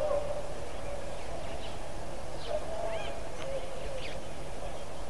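Wild birds calling: repeated short lower calls and scattered brief high chirps over a steady background hiss.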